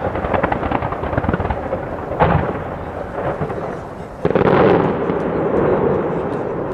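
Fireworks display: rapid crackling of bursting shells, then a sharp loud bang about two seconds in and a heavier blast about four seconds in that trails off in a long echo.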